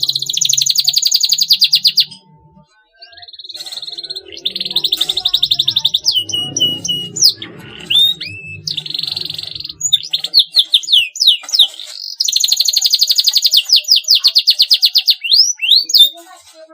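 Domestic canary singing: long, fast, high trills and rolls mixed with sharp chirps and whistled notes, in phrases with brief pauses about two seconds and ten seconds in.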